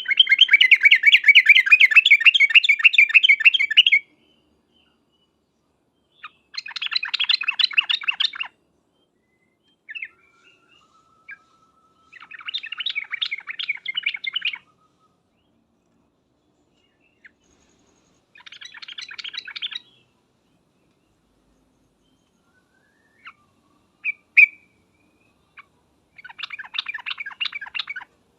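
Yellow-vented bulbul (trucukan) chattering calls, a recorded lure call used to make bulbuls answer: five bursts of rapid notes, each about two to four seconds long with pauses between. The first burst is the loudest, and a few single sharp chips come shortly before the last burst.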